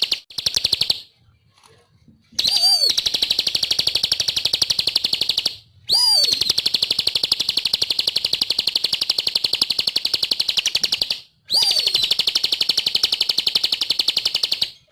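Bar-winged prinia (ciblek) singing: long, very fast trills of sharp ticking notes, each opening with a quick downslurred note. After a brief burst at the start come three trills of a few seconds each, with short pauses between.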